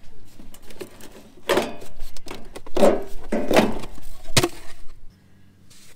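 Black corrugated plastic drain pipe being twisted and pulled off the bottom of a gutter downspout: about three seconds of scraping and crackling plastic rubs, ending with a sharp click.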